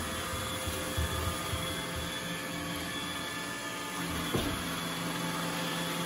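iRobot Roomba 960 robot vacuum running over a hardwood floor: a steady hum of its motors and brushes with several held tones, and a single knock a little over four seconds in.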